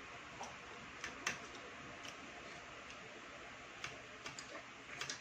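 Scattered light clicks and taps of a meal being eaten, such as utensils on plates, irregular and spaced out over a faint steady hiss.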